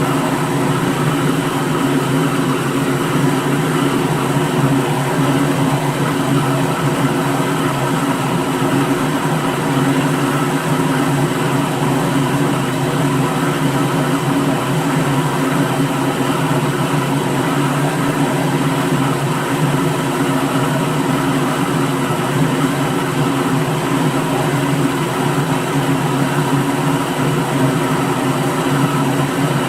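Electric kitchen blender motor running steadily at one speed, an even whirring hum that does not change.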